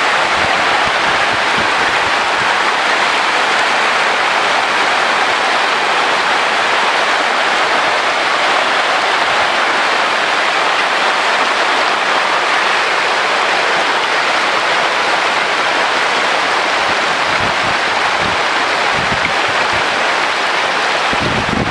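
A dense mass of magur catfish thrashing and splashing at the surface of a crowded pond as they feed: a loud, steady hiss of churning water.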